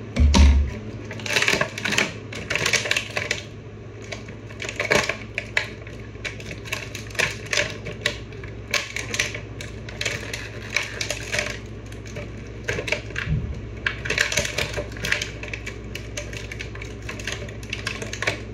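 Toy packaging being handled and pulled apart while a WWE Elite action figure is unboxed: irregular clusters of clicks and crinkles, with a dull thump just after the start.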